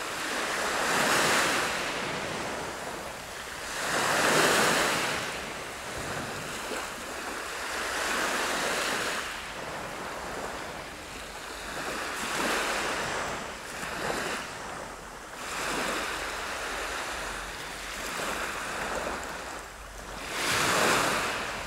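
Small waves breaking and washing up a pebble beach, the surf rushing in and fading every few seconds, loudest about four seconds in and near the end.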